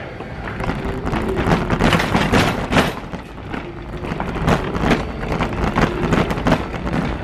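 Metal wire shopping cart rolling across a hard store floor, its wheels and basket rattling with irregular clatters.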